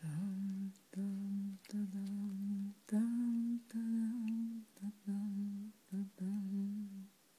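A person humming a slow, low tune in about seven held notes with short breaks between them; the notes stay mostly level, with one a little higher about three seconds in.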